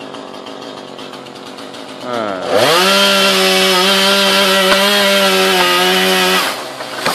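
Two-stroke chainsaw running low, then revved up quickly about two seconds in and held at full throttle for about four seconds before it is let off near the end.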